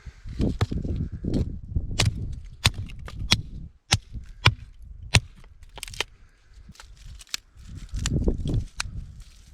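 Dry wood cracking and knocking in about a dozen sharp, irregular strikes, the sound of sticks being broken or split up for a fire.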